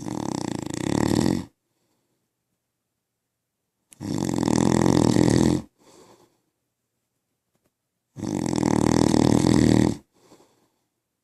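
A man snoring in his sleep: three long, loud snores about four seconds apart, each followed by a short, faint breath.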